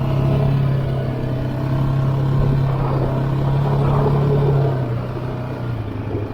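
ATV engine running at steady revs, then easing off about five seconds in.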